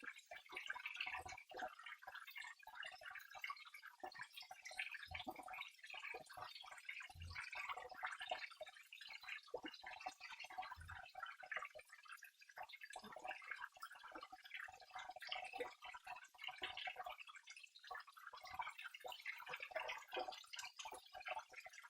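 Flowing water trickling and dripping in a continuous flicker of small splashes, with a few soft low thumps.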